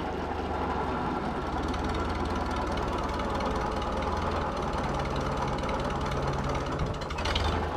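Farmall Super A tractor's four-cylinder engine running steadily while it powers a homemade backhoe, with a steady mechanical clatter over the low engine rumble. A steady hum joins in for about two seconds past the middle.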